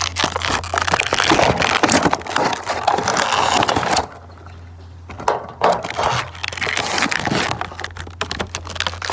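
Toy packaging crinkling and crackling as it is handled and pulled open, with a pause of about a second and a half just past the middle.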